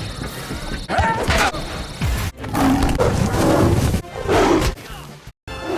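A rapid series of creature roars and growls, cut one after another in short pieces, with music underneath.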